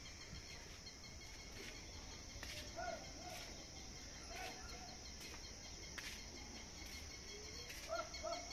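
Outdoor ambience: a steady high-pitched insect chorus, with short bird call notes about three seconds in, again around four and a half seconds, and a quick run of them near the end. There are a few faint clicks.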